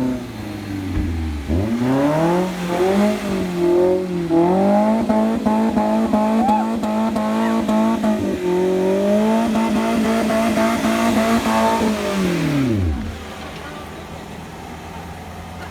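Off-road 4x4's engine revving hard, pitch climbing and then held at high revs for several seconds before dropping off near the end.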